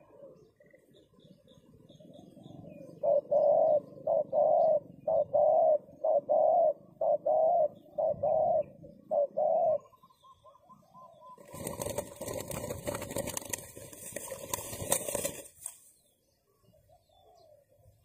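Spotted dove cooing: a long run of short, evenly spaced coos. It is followed by a few seconds of rough rustling noise.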